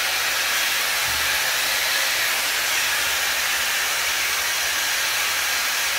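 DAILYTOP 5-in-1 hot air dryer brush blowing steadily: a constant, even rush of air.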